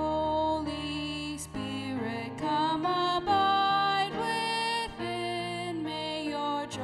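A female vocalist singing a slow hymn verse in held notes, accompanied by keyboard and electric bass guitar.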